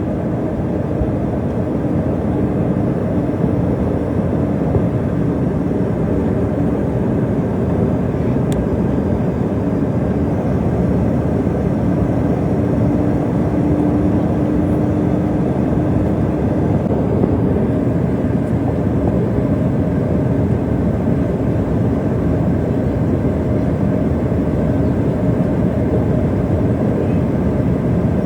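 Steady cabin noise inside a jet airliner in flight: engine and airflow noise that does not change, with a faint steady hum running through it.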